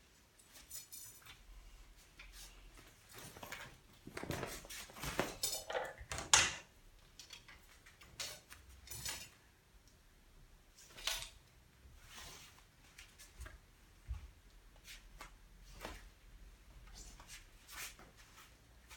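Scattered clatters and knocks of hard objects, loudest about six seconds in, as rhythmic gymnastics apparatus is put down and picked up between routines. Sparser light clicks follow.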